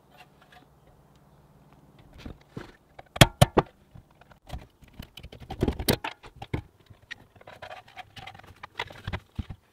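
Clicks, knocks and rattles of a small grey electrical enclosure being handled and fitted onto grey one-inch conduit through its knockout, then held up against a wall. A cluster of sharp clicks comes about three seconds in, with scattered knocks after.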